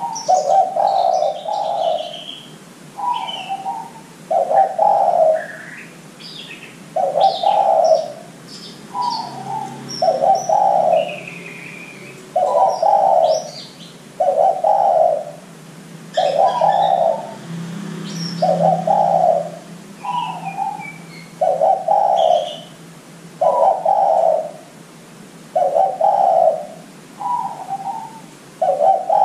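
Spotted dove cooing in a steady, repeating pattern: a short higher note, then a longer, lower coo, about every two seconds. Small birds chirp faintly and high-pitched in the background.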